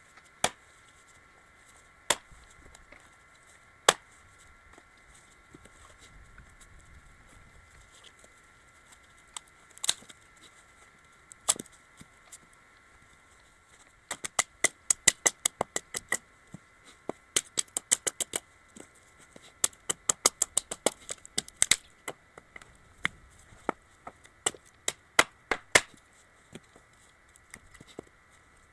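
Sharp knocks and taps of hand tools working a wooden log, a few scattered at first, then coming in quick runs of several a second through the second half.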